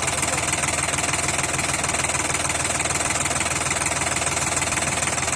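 Sonalika 45 HP tractor's diesel engine running steadily at a low, even idle, with a rapid knocking beat.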